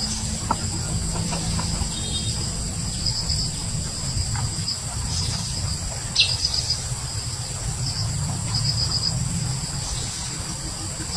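Forest insects chirping in a steady high trill that pulses in short runs now and then, with one brief falling chirp about six seconds in, over a low steady rumble.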